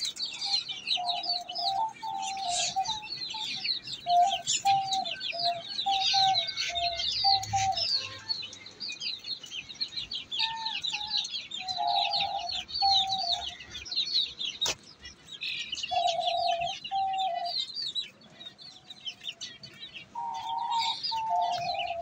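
A flock of hungry young chicks peeping constantly with rapid, high peeps, mixed with short lower calls that come in runs of several at a time. One sharp click about two thirds of the way through.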